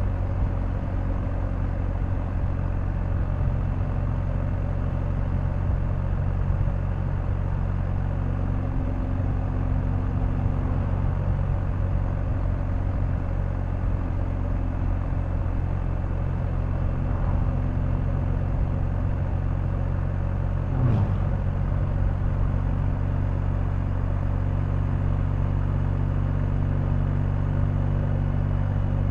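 BMW R1250GS 1254 cc boxer-twin motorcycle engine running at a steady cruising speed, with road and wind noise. About two-thirds of the way through, the engine note briefly changes pitch, with a faint click.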